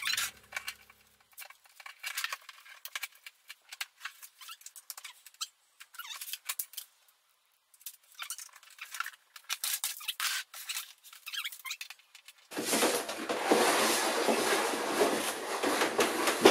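Cables and small plastic cable clips being handled and fitted: quick irregular clicks, taps and rustles. About twelve seconds in, a much louder, dense rustling and scraping noise starts suddenly.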